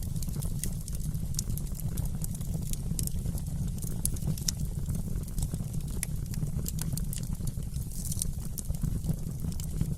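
Wood fire crackling in a fireplace, with irregular sharp pops and snaps over a steady low rumble.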